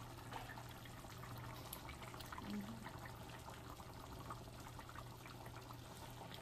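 Fish curry simmering in a pan, a soft steady bubbling with many small pops, and a fork lightly prodding the fish and touching the pan. A low steady hum runs underneath.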